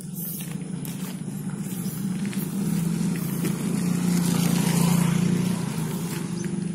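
Small motorcycle engine running as it passes close by, its steady hum growing louder to a peak about four to five seconds in, then easing off.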